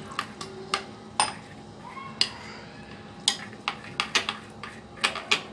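A steel spoon stirring thick semolina-and-curd idli batter in a glass bowl, clinking against the glass in irregular sharp taps, bunched more closely in the second half.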